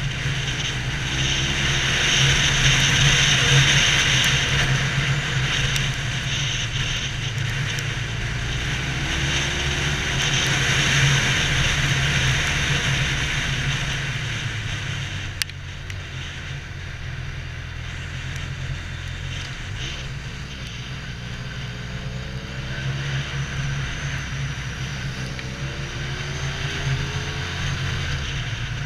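Sport motorcycle engine running at a steady cruise, with wind and road noise from riding on a wet road. About halfway through there is a single sharp click and the sound drops a little as the bike eases off.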